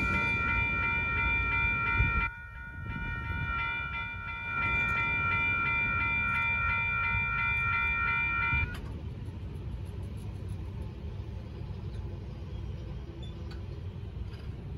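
Railroad crossing bell ringing in a fast, even rhythm, then cutting off suddenly about nine seconds in as the crossing clears. Underneath, a low rumble from the departing train continues and fades.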